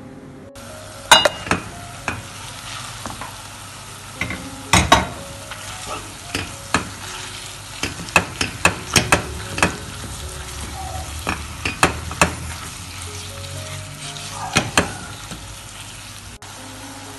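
Minced veal and onions sizzling in a frying pan as a wooden spatula stirs and breaks up the meat. There are sharp knocks and scrapes of the spatula against the pan at irregular intervals. The sizzle starts abruptly about half a second in.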